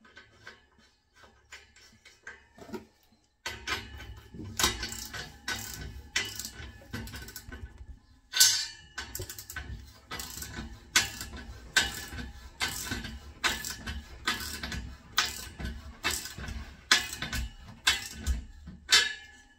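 Ratchet of a socket-set radiator key clicking in repeated short strokes, about three every two seconds, from a few seconds in, as a radiator valve tail is tightened.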